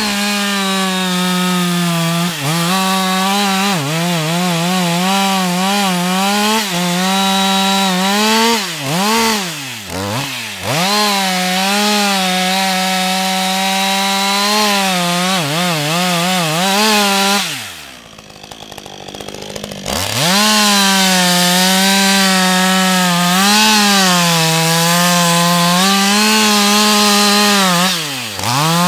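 Husqvarna 562 XP two-stroke chainsaw at full throttle, cutting into a standing tree trunk. The engine note wavers as the chain bites into the wood. The revs dip briefly a third of the way in. Just past halfway they fall away for about two seconds before the saw is opened up again.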